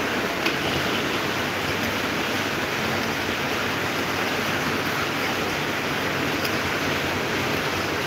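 Electric desk fan running: a steady rush of moving air, with one small click about half a second in.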